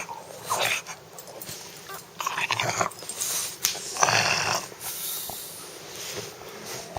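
English bulldog puppy making noisy breaths and grunts in its sleep, about four of them in the first five seconds and fainter after.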